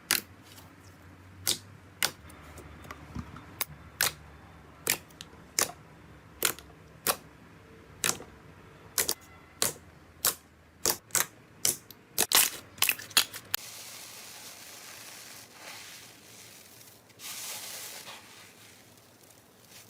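Slime being pressed and poked by hand, giving sharp popping clicks about once or twice a second that come faster near the middle. At about 13 seconds they give way to a steady crackly hiss, which swells briefly near the end.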